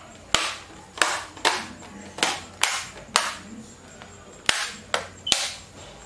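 Bottom cover of an HP ProBook 440 G7 laptop being pressed back onto the chassis, its snap-in clips clicking into place one after another: about nine sharp clicks at uneven intervals.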